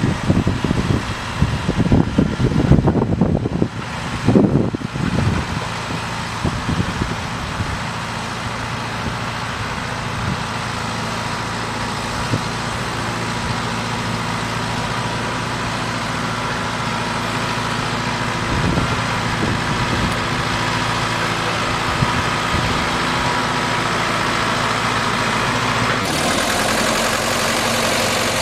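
Compact tractor engine running as the tractor drives up carrying a steel frame on its loader, growing slowly louder as it nears, with wind buffeting the microphone in the first few seconds. Near the end the sound cuts to a jeep engine idling beside its front PTO winch.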